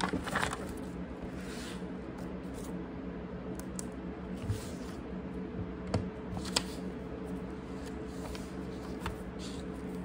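Paper pages of a stack of spiral-bound notebooks rustling as they are flipped, loudest in the first second, then scattered softer rustles and a couple of sharp clicks about six seconds in, over a steady low hum.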